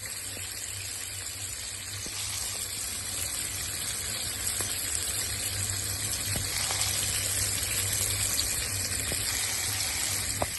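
Hilsa fish pieces frying in hot oil in a pan: a steady sizzle with scattered crackles and pops, getting a little louder after about two seconds.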